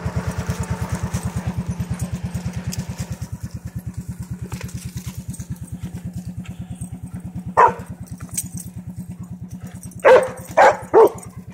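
A steady low mechanical thudding, about seven beats a second, slowly getting quieter, with dogs barking: one bark about two-thirds of the way in and three sharp barks close together near the end.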